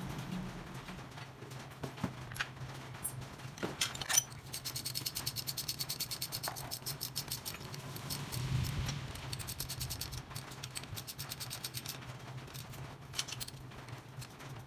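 Hand ratchet with socket driving in the timing chain cover bolts on a Suzuki K6A engine. A few sharp metal clinks come first, the loudest about four seconds in, then a run of rapid, even ratchet clicks. The clicking turns looser and more broken in the second half, over a steady low hum.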